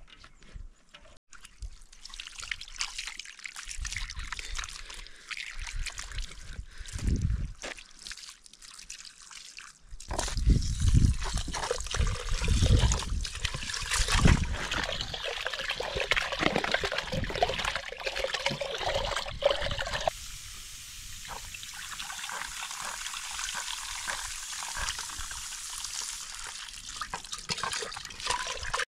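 Water running from a hose pipe into an aluminium pressure cooker pot while the contents are swished and rinsed by hand, with some low bumps from handling the pot. The flow is louder and more splashy in the middle, then settles into an even rush.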